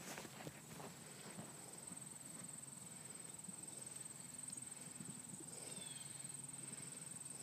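Faint hoofbeats of a horse cantering on grass turf, heard from a distance, under a steady high-pitched insect buzz.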